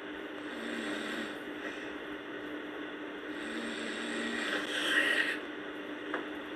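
A sleeping person snoring: two breaths, the second longer and louder, peaking about five seconds in, over a steady hum.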